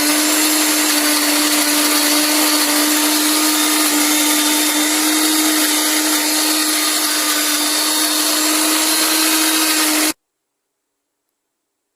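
Suruchi Elantra 800-watt mixer grinder running at a steady speed, a loud motor whine with a steady hum, cutting off suddenly about ten seconds in.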